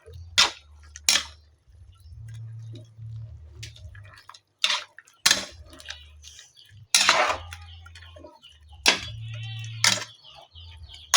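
Metal cooking utensils clanking against a pot or pan: a series of about eight sharp, irregular clanks and scrapes over a low steady hum.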